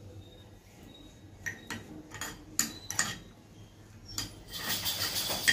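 A utensil clinking and scraping in a small nonstick frying pan as green chillies are stirred while they fry. Several light clicks come in the first three seconds, then a louder, longer scraping rush starts about four seconds in.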